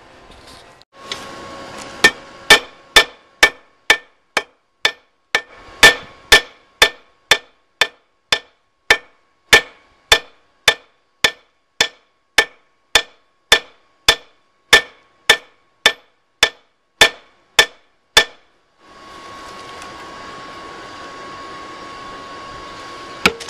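Hand hammer striking hot 1/2 inch rebar on an anvil, drawing out and flattening the jaw of a tong half, in a steady run of ringing blows about two a second that stops a few seconds before the end. A steady rushing noise follows.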